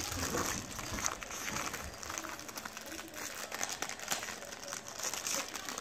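Small plastic package crinkling and crackling in irregular bursts as it is worked at by hand to get the item out.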